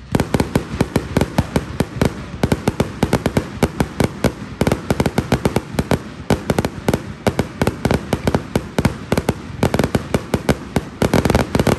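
Fireworks display: a rapid barrage of firework bangs, several a second, that breaks off suddenly near the end.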